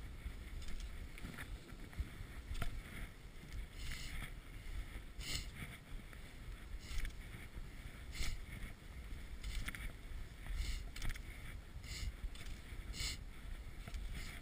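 Cross-country skis swishing over snow in a steady striding rhythm, one stroke about every second and a bit, with wind rumbling on the chest-mounted microphone.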